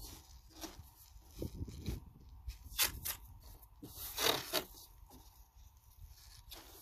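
Green adhesive tape pulled off its roll in several short tearing rips and pressed down onto a cardboard box.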